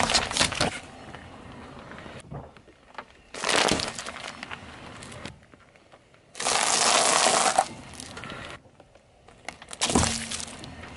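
A car tyre rolling over and crushing one object after another: apples bursting with a sharp crack at the start, another crunch about three and a half seconds in, a pile of sunflower seeds crackling and crunching for over a second at about six and a half seconds, and a drink carton bursting near the end.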